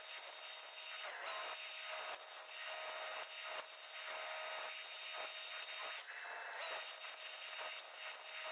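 Electric arc welding on the steel trommel drum: a steady dense crackle and sizzle of the arc, with a brief break about six seconds in, over a faint steady machine hum.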